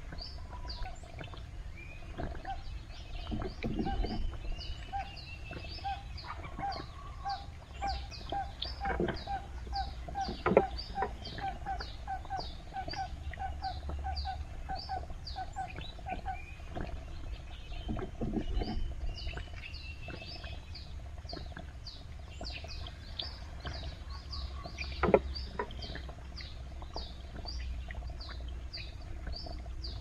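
Birds calling from the riverside: a rapid, unbroken run of short high chirps, with a lower call repeated quickly for several seconds near the start. Two sharp knocks stand out, one about a third of the way in and one near the end.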